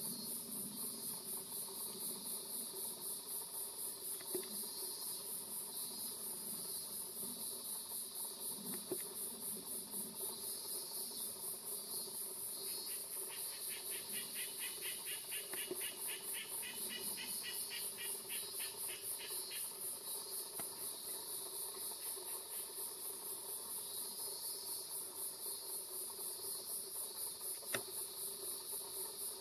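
Chorus of singing insects: a continuous high-pitched, fast-pulsing buzz, with a second rapid pulsed trill joining for about six seconds midway. A few faint ticks are heard.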